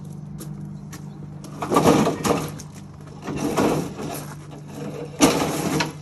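John Deere 60-inch mower deck dragged out over gravel, with stones crunching and scraping in three loud pulls, the first about two seconds in and the last starting sharply near the end.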